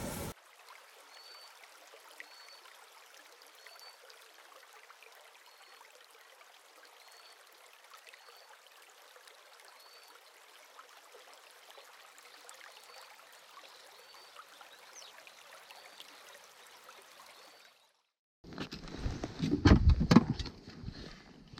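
Faint steady outdoor hiss with a short high chirp repeating about once a second. After a brief gap near the end comes a burst of loud knocks and clatter: ice-fishing gear, an ice pick and a loaded sled, being handled on the ice.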